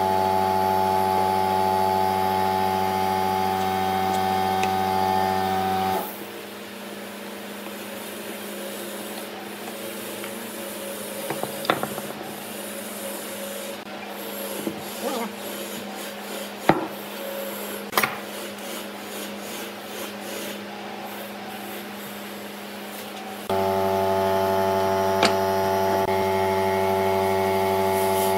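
A wooden stick scraping and rubbing as it spreads a dark liquid finish over wood, with a few sharp taps. A steady machine hum runs over it for the first six seconds, stops, and comes back near the end.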